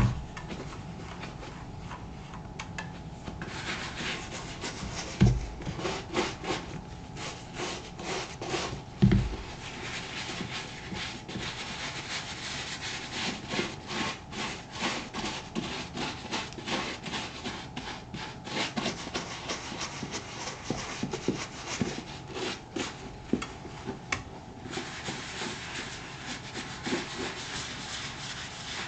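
Leather of a black Thorogood moc-toe boot being scrubbed with saddle soap: steady back-and-forth rubbing strokes. Two dull thumps come about five and nine seconds in.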